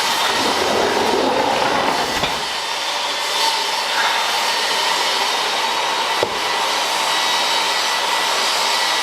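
Steady rushing, blower-like noise, with a lower rumble in the first couple of seconds and a single sharp click about six seconds in.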